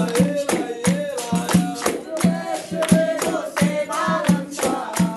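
Capoeira music: a group singing over handclaps and a steady hand-drum beat.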